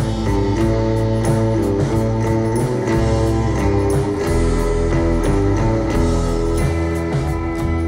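Instrumental passage of a song, with held notes changing every half-second or so and no singing.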